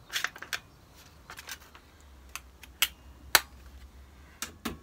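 Irregular metallic clicks and clinks from locking-plier clamps and galvanized sheet steel being handled and clamped together, with one louder click about three and a half seconds in and a few heavier knocks near the end.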